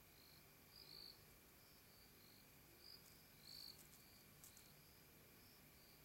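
Faint chirping of night insects: short high chirps repeating a few times a second at two slightly different pitches, from more than one insect, with a few soft ticks.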